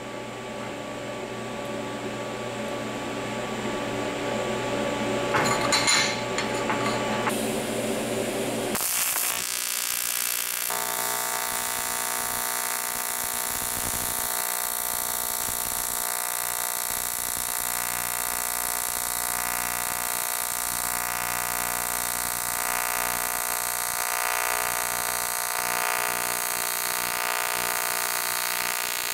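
AC TIG welding arc on aluminum, a steady buzz with a hiss from about ten seconds in. Before that there is a lower, uneven buzz that grows louder, with a sharp crackle about six seconds in.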